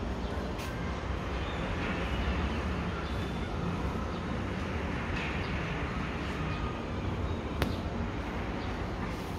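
Steady outdoor city ambience, a low, even rumble of distant traffic and wind, with one sharp click about seven and a half seconds in.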